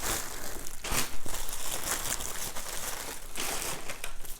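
Wrapping being crinkled and pulled off a packaged item by hand: a continuous rustle with sharper crackles about a second in and again near the end.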